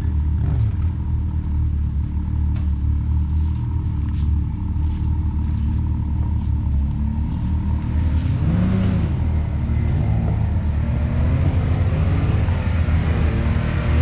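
Can-Am Maverick X3's turbocharged three-cylinder engine pulling at low revs while crawling over rocks, with a few light clicks and knocks. From about eight seconds in, it revs up and down.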